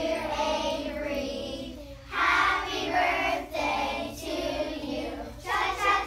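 A group of young children singing a song together, with a short break about two seconds in before the next line.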